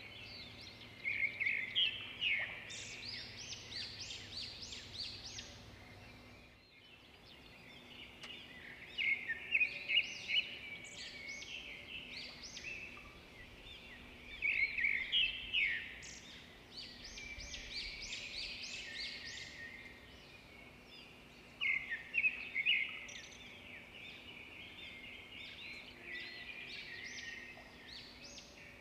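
Birds chirping in quick bursts of short, high notes that recur every few seconds over a faint steady background.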